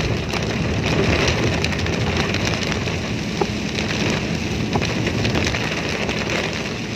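Heavy rain pelting a car's windshield, heard from inside the moving car as a dense, steady hiss with a few faint drop ticks.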